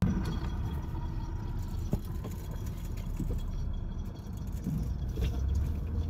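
Inside a moving car: steady low rumble of the engine and tyres on pavement as it drives slowly.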